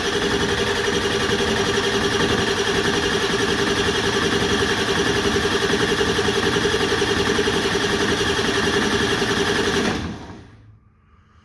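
7.3L Powerstroke V8 diesel cranking over on its starter for about ten seconds without firing, a steady, evenly pulsing churn that dies away near the end. It is a crank-no-start: injection control pressure reaches only about 200 psi, not enough to start it, where around 500 psi is needed.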